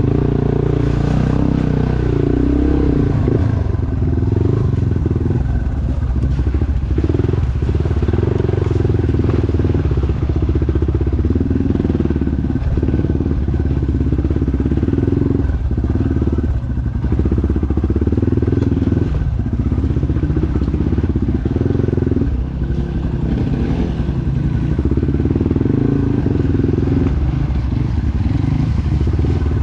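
Trail dirt bike engine running under load as it is ridden, the throttle eased off briefly every few seconds and then opened again.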